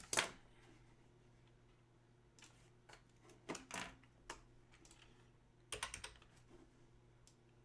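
Computer keyboard typing and clicking, faint, in a few short scattered bursts.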